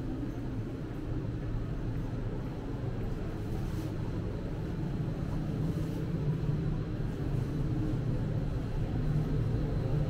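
Steady low rumble of a train at a station platform, with a low hum in it, growing a little louder in the second half.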